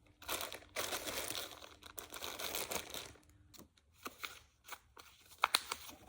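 Paper crinkling and rustling as a paper squishy is handled and stuffed, for about three seconds, then quieter handling with a few sharp clicks and taps near the end.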